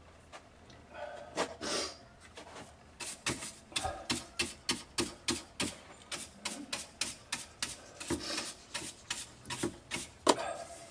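Stiff-bristled hand brush scrubbing sawdust off an oak bowl and the lathe bed: a few strokes, then quick, even strokes about three a second from about three seconds in.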